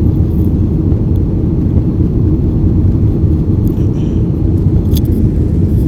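Steady low rumble of a jet airliner's engines and airflow heard inside the passenger cabin, with a faint click about five seconds in.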